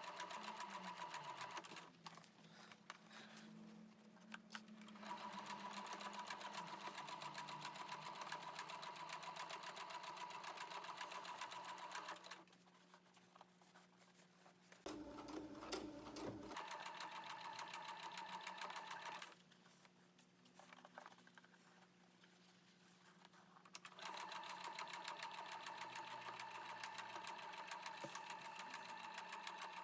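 Sewing machine stitching canvas in steady runs, stopping three times for a few seconds, with a short low knock during the second stop.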